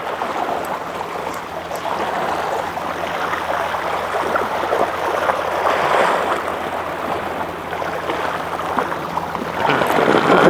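Steady rushing water noise.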